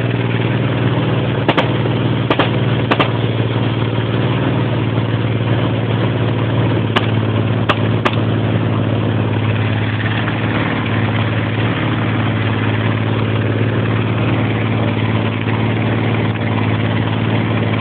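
Military vehicle engine running hard and steady as the vehicle drives across a grass field, a deep continuous drone, with a few sharp cracks or knocks in the first half.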